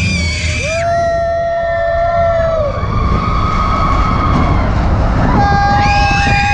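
Riders on the Expedition Everest roller coaster giving several long, held high-pitched calls, one after another and overlapping, over the steady low rumble of the coaster train.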